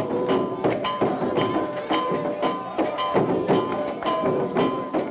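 Cuban music with a steady percussion beat under a repeating melody.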